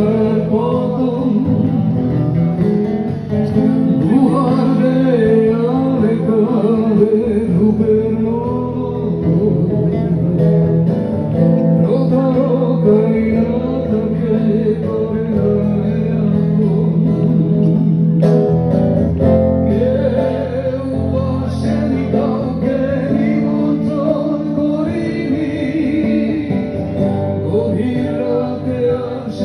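A man singing live into a microphone, accompanying himself on an acoustic guitar.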